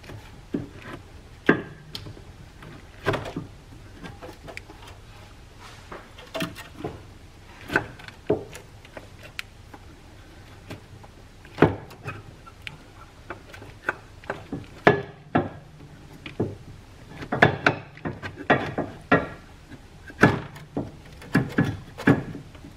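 Irregular knocks and clunks, several in quick clusters near the end, as a new front engine mount is worked by hand into place in the engine bay.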